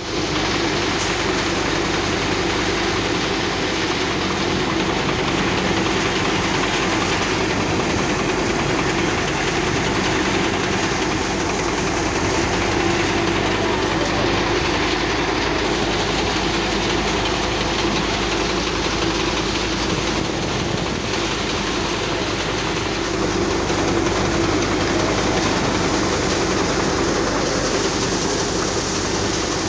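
Soybean thresher running steadily under load as dried soybean plants are fed into its drum: a continuous loud mechanical rattle and hum that holds even throughout.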